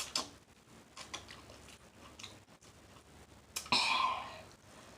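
Close-up eating sounds: a few soft, wet mouth smacks and clicks, then a single short cough about three and a half seconds in.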